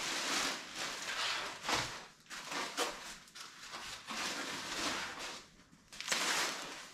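Plastic packaging rustling and crinkling in uneven bursts as it is pulled off a new motorcycle windshield, with the loudest rustle near the end.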